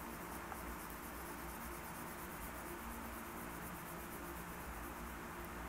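Faint, steady scratching of a yellow crayon rubbed back and forth on paper, colouring in an area, over a low steady hum.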